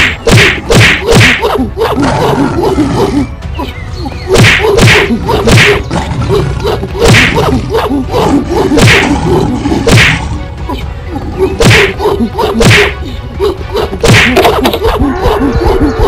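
Cartoon fight sound effects: a string of sharp whip-like punch hits and swishes, often in quick pairs, with a short pause about two seconds in, over a steady low rumble.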